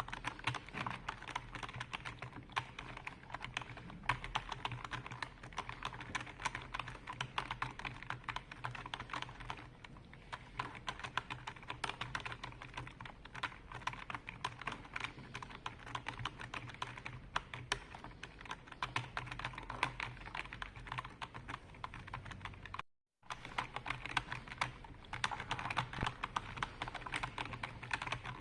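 Computer keyboard being typed on continuously, a dense run of rapid key clicks, broken by a brief dead-silent gap about 23 seconds in.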